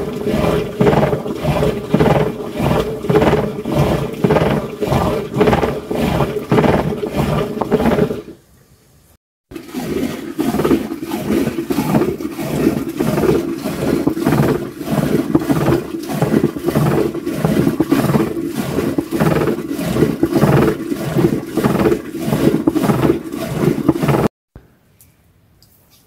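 Milk churned by hand in a pot with a rope-spun wooden churning stick, twirled back and forth in a steady rhythm of about two to three strokes a second. The churning breaks off briefly about eight seconds in, then resumes and stops a couple of seconds before the end.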